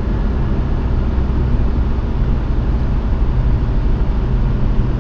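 Steady low road and engine rumble heard inside the cabin of a moving vehicle.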